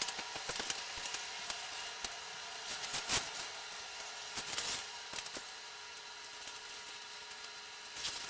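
Small metal clicks and scraping as washers and nuts are threaded by hand onto running-board bracket bolts, with one sharper click about three seconds in.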